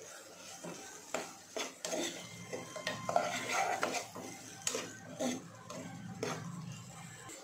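A spatula stirring diced onions and green chillies in a non-stick pot, scraping and knocking against the pot in irregular strokes.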